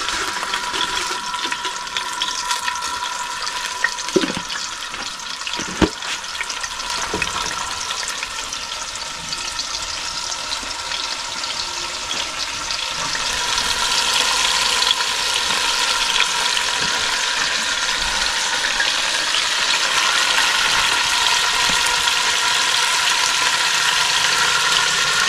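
Salted cooking oil sizzling steadily as it heats for rice in a cast-iron caldero over a wood fire, growing louder about halfway through. Two light knocks about four and six seconds in.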